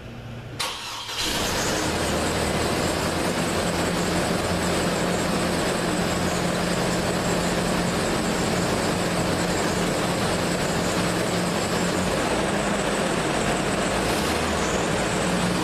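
2007 Chevrolet Colorado pickup engine cranked over briefly about a second in, catching at once and then idling steadily.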